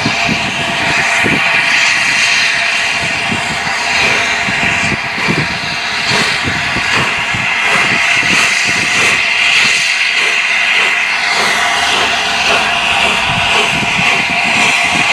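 Peppercorn A1 Pacific steam locomotive 60163 Tornado moving slowly, with a loud, steady hiss of escaping steam over soft, uneven exhaust beats.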